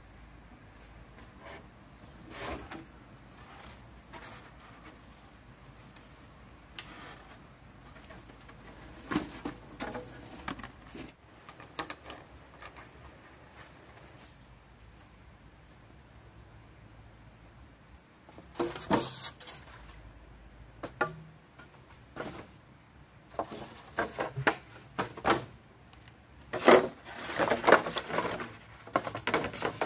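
Insects chirring in a steady high drone, with scattered knocks and clattering: a cluster about two-thirds of the way in and a busier run of them near the end.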